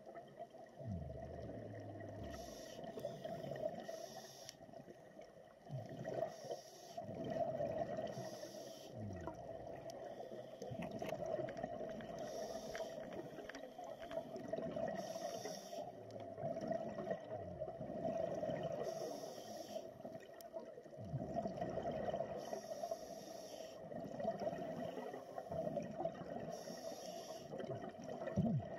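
Scuba diver breathing through a regulator underwater: a short hiss of inhalation every three to four seconds, alternating with the bubbling gurgle of each exhalation, over a steady low hum.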